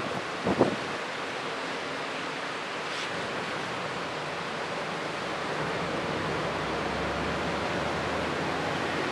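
Typhoon storm: a steady rushing hiss that swells slightly in the second half, with a short gust buffeting the microphone just after the start.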